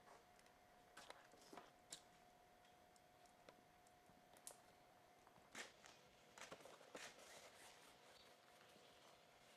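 Near silence: faint room tone with a steady hum and a few scattered soft clicks and taps.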